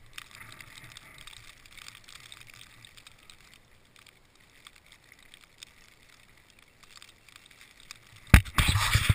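Faint rustling and scattered small clicks of gear being handled in snow, then about eight seconds in a sudden loud, rough rushing and crackling close on the camera microphone.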